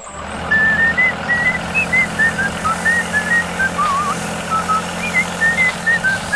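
A whistled melody of short notes, some with a wavering vibrato, played as background music over a steady low hum.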